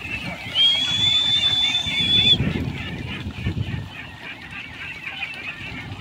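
A large flock of young ducks calling in a constant chatter of many overlapping quacks. A single steady, high-pitched tone sounds over them for under two seconds near the start.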